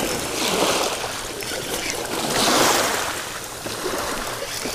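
Ocean surf washing up on the shore, swelling and fading about every two seconds.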